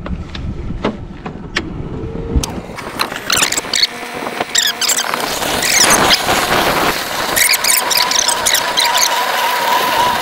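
Powered crab-pot puller hauling a pot line up over its sheave: a steady run with many short high squeals and squeaks from the line, starting about two and a half seconds in.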